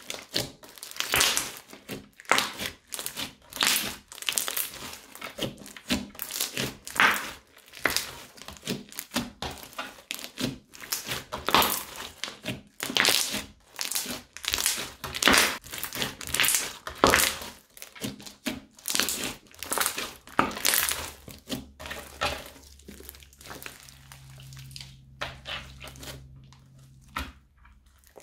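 Crunchy slime with small beads mixed in being squeezed and kneaded by hand: a dense run of irregular crackling, popping crunches that thins out and grows quieter over the last several seconds.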